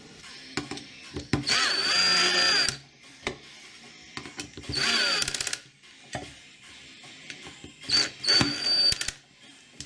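Power drill/driver driving the screws that fasten a bicycle disc brake rotor to a 3D-printed hub: three short runs of motor whine, the first rising in pitch before holding steady, the last broken in two, with small clicks of screws and the bit in between.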